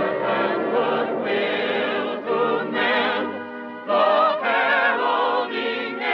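Orchestral cartoon score with sustained, choir-like voices wavering on long held notes. The music thins briefly a little after three seconds and swells again just before four seconds.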